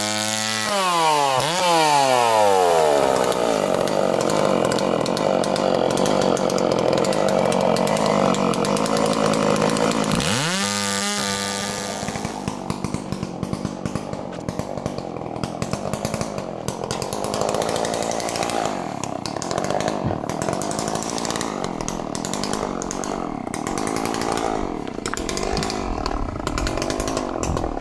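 Chainsaw running. Its revs fall away over the first few seconds, climb sharply again about ten seconds in, then it carries on at a lower, uneven level.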